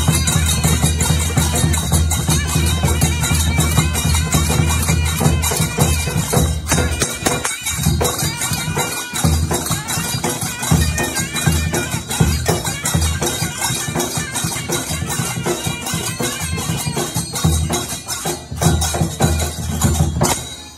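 Traditional Odia temple band playing: a shehnai-type reed pipe holding a nasal melody over large drums beaten in a fast, driving rhythm, with hand cymbals clashing. The music breaks off abruptly at the end.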